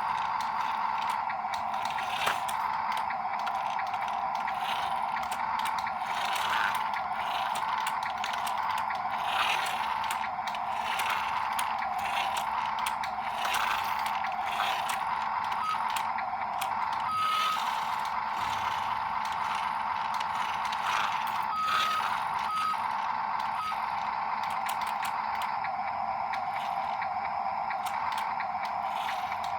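Small electric motors and gearboxes of radio-controlled model construction machines whining steadily, with many small clicks and rattles. A few short, higher-pitched tones come in during the second half.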